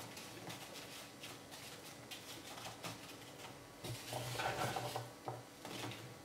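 Chunks of peeled apple being picked up by hand from a wooden cutting board and dropped into a cake mould, pieces knocking against each other: a run of small taps and clicks, busier about four seconds in.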